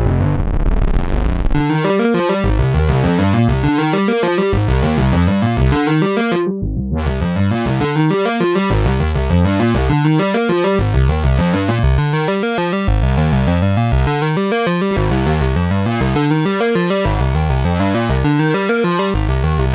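Behringer Odyssey paraphonic analogue synthesizer playing a fast sequenced pattern of repeating notes over pulsing bass. The filter opens up over the first second and a half, and the high end cuts out briefly about six seconds in.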